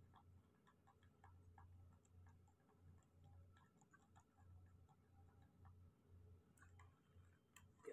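Faint, irregular small ticks and clicks of a precision screwdriver working on an opened Vivo phone, with a couple of sharper clicks near the end, over a low steady hum.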